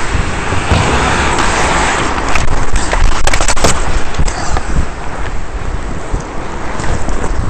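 Ice hockey skating heard through a helmet-mounted camera's microphone: skate blades scraping the ice under a steady rush of wind noise, with a quick run of sharp clattering knocks about three seconds in.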